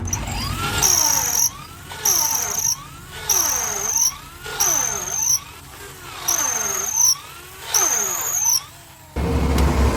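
Wooden handle being turned on a lathe: about six cutting strokes, each a high scraping whine with a pitch that swings up and down as the work spins, stopping about nine seconds in. A low rumble takes over near the end.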